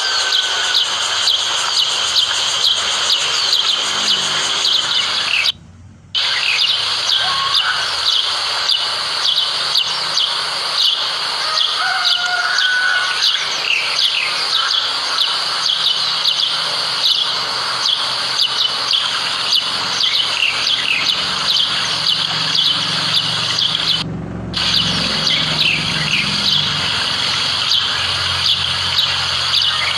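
White-eyes (burung pleci) chirping: a dense, continuous run of rapid high-pitched chirps, with a few lower whistled notes mixed in. The sound cuts out briefly twice, near 6 s and near 24 s.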